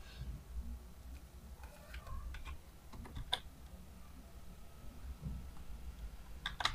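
Faint computer keyboard keystrokes: scattered single taps, then a quick run of taps near the end, as digits are typed in.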